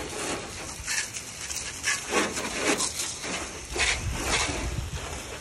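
Water from a garden hose spray nozzle splattering against a pickup truck's lower body and wheel and onto the ground, in uneven surges as the stream is swept along.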